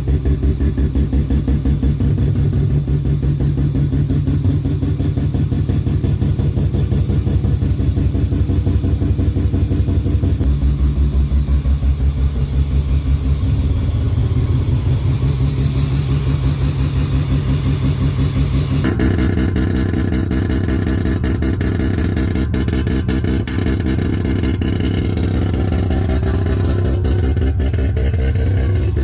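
Mazda 12A rotary engine running with a choppy, rapidly pulsing exhaust note. The sound changes abruptly about ten seconds in and again a little before twenty seconds.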